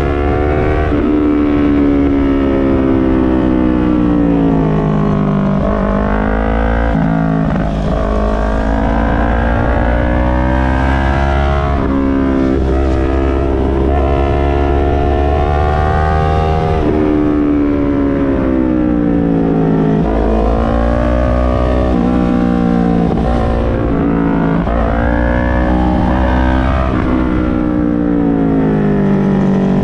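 Yamaha MT-03 parallel-twin engine through an SC-Project full exhaust system while riding: the revs climb and fall back over and over, with sudden drops in pitch at gear changes, over a steady low rumble.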